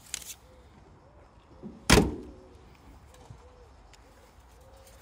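Front door of a 1936 Ford Tudor being slammed shut once, a sharp, loud bang with a short ringing decay about two seconds in, after a brief rustle at the start.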